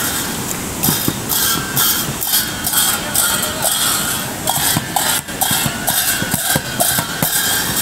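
Large brass hand cymbals clashed in a steady beat, about two clashes a second, starting about a second in, over the rush of a fast river.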